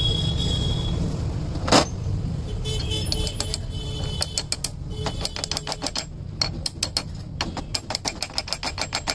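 Sharp metallic taps as a gear is knocked onto the shaft of a Mahindra Bolero NGT 520 gearbox during reassembly: one heavy knock early, then a run of quick taps, about three to four a second, that grows denser near the end, over a steady low hum.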